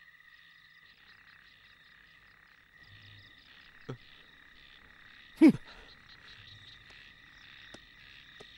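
Faint night chorus of frogs, a steady pulsing trill. About five and a half seconds in, a loud short sound drops quickly in pitch, the loudest moment.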